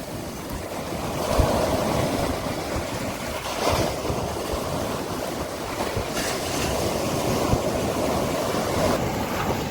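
Sea waves breaking and washing up a beach in a steady rush, surging louder about a second in and again around four and six seconds in.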